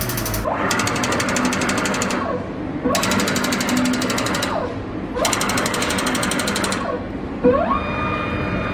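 PRE-T-COOL DTG pre-treater spraying pretreatment through its nozzles in three passes. Each pass is a burst of very rapid, even pulsing about a second and a half long, with a motor pitch rising at the start and falling at the end. Near the end there is a knock, then a steady high whine.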